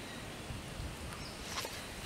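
Quiet outdoor ambience with faint, steady high-pitched animal calls, and a short rustle of a hand on dry leaves and ground about one and a half seconds in as a stick is picked up.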